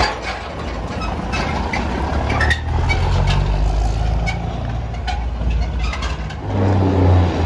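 Heavy truck's diesel engine running with scattered knocks and rattles. About six and a half seconds in it grows louder, as the engine pulls harder.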